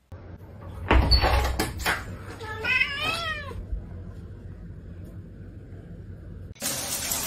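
A domestic cat meowing once, a drawn-out wavering call about three seconds in, after a few knocks and rustling about a second in. A steady hiss-like noise starts suddenly near the end.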